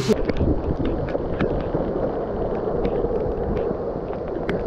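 Hurricane wind blowing across the microphone as a steady low rushing rumble, with scattered sharp ticks.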